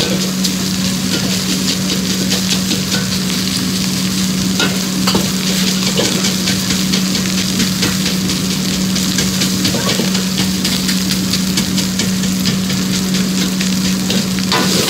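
Fried rice sizzling in a hot wok while a metal wok ladle stirs and scrapes it, with frequent short clicks of the ladle against the pan. A steady low hum runs underneath.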